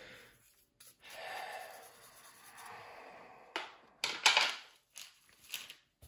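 Handling noises from a plastic model fuselage being turned in the hand: a soft hiss for a couple of seconds, then a few sharp rustles and clicks past the middle.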